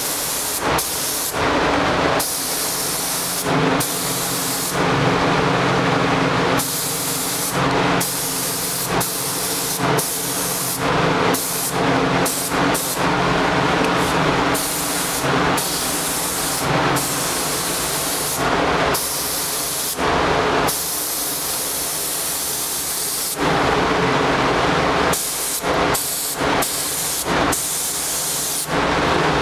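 SATA gravity-feed HVLP paint spray gun hissing in repeated bursts as the trigger is pulled and released in passes along a car body panel, most bursts under a second, a few held for one to two seconds, over a steady low hum.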